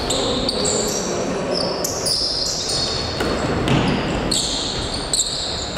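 Basketball game in a gym: a ball bouncing on the court, high-pitched sneaker squeaks on the floor and occasional player voices, echoing in the hall.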